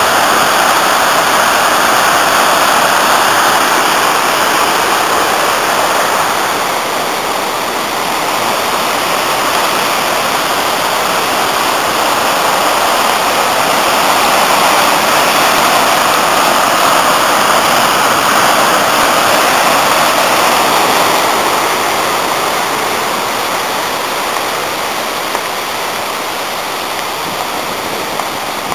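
The Afon Artro in spate after heavy rain, its swollen white water rushing over rocks and falls in a loud, steady rush that eases a little near the end.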